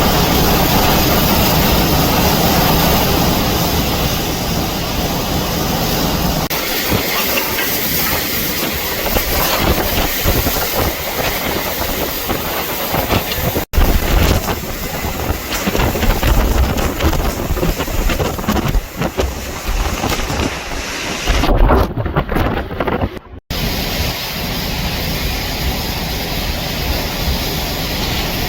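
Extreme hurricane eyewall wind blowing, a loud, continuous rush of noise that surges and eases in gusts, with heavy low rumble of wind on the microphone.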